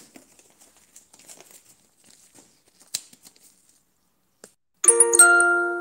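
Faint rustling handling noise with a single click about three seconds in, then near the end a loud smartphone notification chime, several ringing tones struck together that fade out, announcing an incoming Instagram message.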